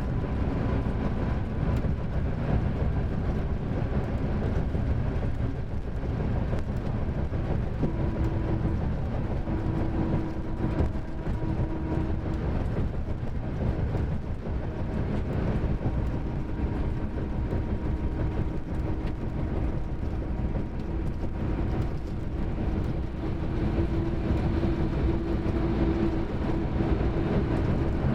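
Mercedes-Benz OM-457LA inline-six turbodiesel of a double-decker coach running under way, a steady low rumble. A humming tone rises above it about a third of the way in and again near the end.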